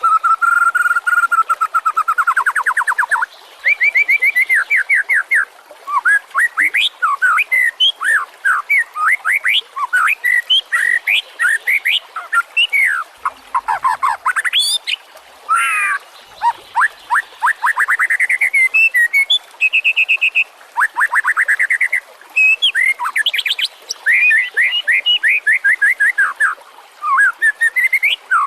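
White-rumped shama (murai batu) singing a long, varied song: clear whistles and rapid runs of repeated notes follow one another with only brief pauses.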